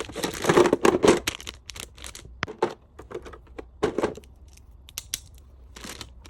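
Packaging crinkling and rustling as small items are handled and packed, most densely in the first second, then in short scattered crackles and clicks.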